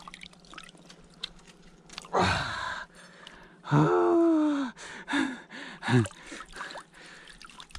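A man's breathy vocal sounds: a sharp gasp about two seconds in, then a long falling exclamation and a couple of short grunts.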